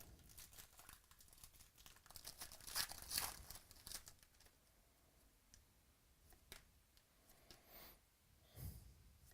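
Faint tearing and crinkling of a foil trading-card pack wrapper being ripped open, a quick run of rips loudest about three seconds in, then a few scattered crackles.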